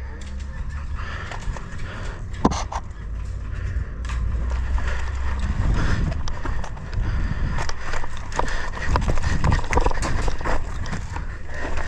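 Footsteps of a player moving on foot over the ground, with irregular knocks and clicks of gear and camera handling and a low rumble on the body-worn camera's microphone.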